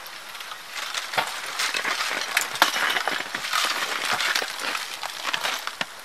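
Thick ice crusted on evergreen branches cracking and clinking, a run of sharp crackles and snaps as a chunk of ice-coated branch is broken off.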